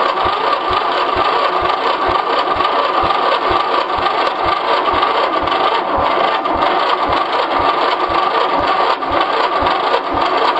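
1984 11 hp Briggs & Stratton single-cylinder engine cranking on its electric starter, jumped straight from a battery. A steady starter whine runs under about three compression thumps a second, and the engine never fires. It doesn't want to start; it smells of gas, so the owner suspects it is not getting spark, possibly from the ignition coil.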